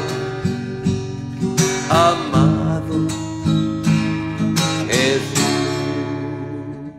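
Song's closing bars on strummed acoustic guitar, with chord strokes ringing out, and the music fading down near the end.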